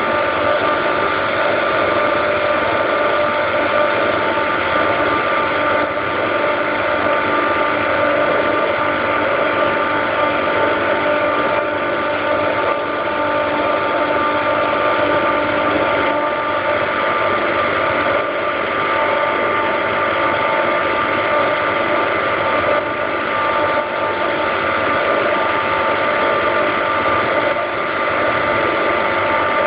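Daikin (McQuay) EWLDJ235-SS chiller compressor running, a steady loud machine drone with several constant whining tones over it, the sound the owner hears as strange.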